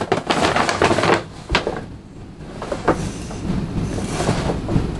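Paper shopping bag rustling and crinkling as it is handled and lifted, with a few sharp knocks.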